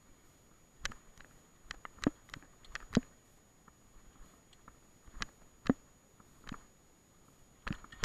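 Irregular sharp knocks and clicks, about a dozen, bunched in the first three seconds and then more spaced out, as the camera-carrying mountain bike jolts over a bumpy grass singletrack descent. A faint steady high whine runs underneath.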